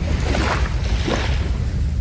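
Sea waves washing onto a beach: a wash of surf swells early on and fades toward the end, over a steady low rumble of wind on the microphone.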